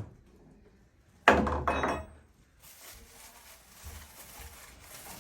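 A single heavy wooden thunk about a second in, with a short cracking rattle after it, as old fittings are knocked out of the boat's woodwork during demolition.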